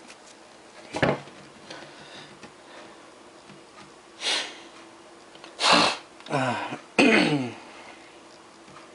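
A man sniffing and clearing his throat: a few short throaty bursts in the second half, the last two falling in pitch, after a single click about a second in.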